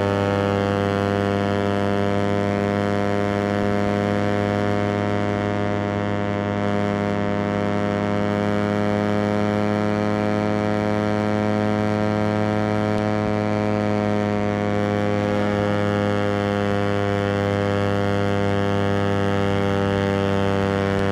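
Suzuki GSX-R150's single-cylinder four-stroke engine running flat out at high revs, near top speed, in one steady, unbroken note. The pitch sags slightly about a third of the way in and climbs back.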